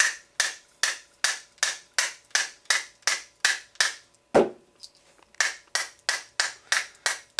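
Quick, regular taps of a screwdriver handle on the end of a 23cc engine's crankshaft, about three a second, knocking the stuck crank out of its crankcase half. One harder, deeper knock about four and a half seconds in, a short pause, then the tapping picks up again.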